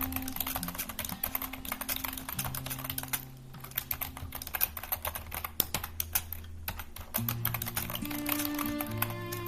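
Rapid keyboard typing: a fast, steady stream of key clicks with two brief pauses, a little after three seconds and again just before seven seconds. Soft instrumental background music plays underneath.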